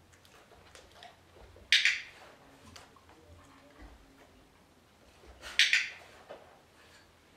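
Dog-training clicker clicked twice, about four seconds apart, each a sharp double click, marking the dog's correct position. Faint small ticks and shuffles in between.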